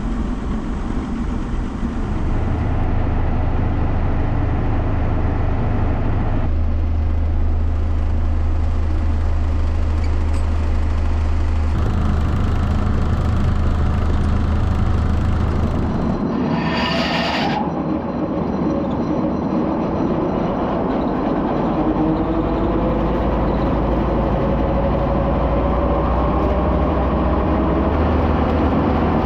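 John Deere tractor's diesel engine running steadily, its pitch stepping several times. There is a short hiss about two-thirds of the way through, after which the engine note slowly climbs.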